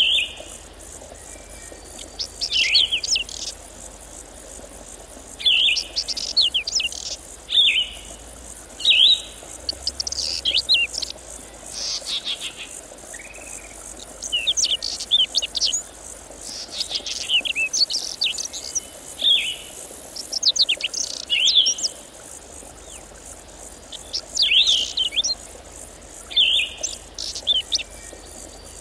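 Songbirds singing short phrases of quick high notes, one every one to three seconds, over a steady chirring of insects.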